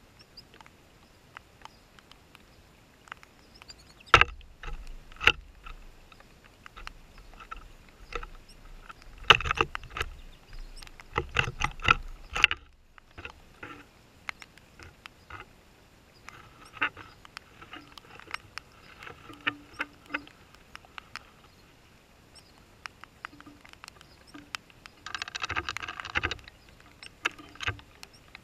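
Irregular small taps and clicks close to the microphone, with heavier thumps about four seconds in and a cluster of them from about nine to thirteen seconds in, and a brief hiss a few seconds before the end: rain, and goldfinches and a sparrow perching and feeding at a metal tube seed feeder.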